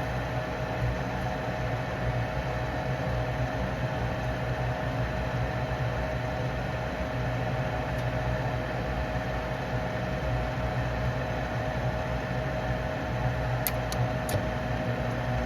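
Steady hum of a gas furnace's fan motor running, with one constant tone above the drone. Three faint clicks near the end.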